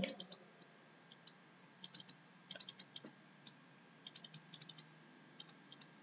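Faint, irregular clicks and taps of a stylus on a pen tablet during handwriting, coming in small clusters.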